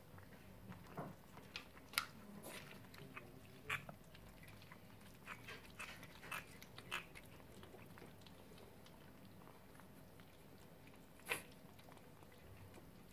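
Several kittens eating from a shared plate: faint, irregular chewing and smacking clicks, with a sharper click about two seconds in and another near the end.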